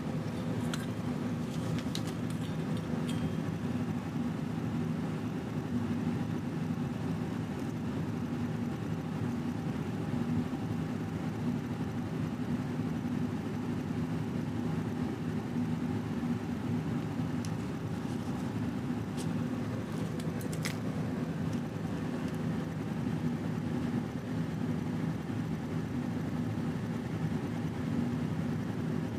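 Steady low hum of a running motor, unchanging throughout, with a few light clicks in the first few seconds and again around twenty seconds in.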